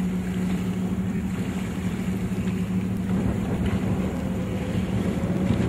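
Boat engine running steadily with an even hum, over a wash of wind and sea noise.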